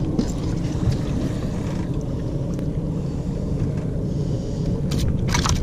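Steady low rumble aboard a small fishing boat, with a few sharp clicks near the end.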